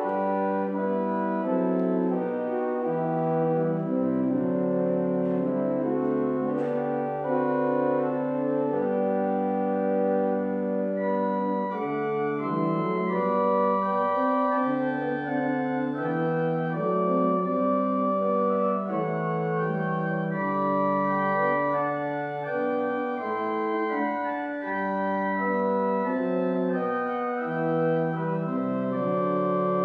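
Organ playing a slow piece in sustained chords, the held notes changing every second or two.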